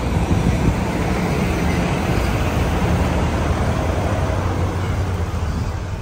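Semi-truck's diesel engine idling, a steady low hum with a noisy rush over it.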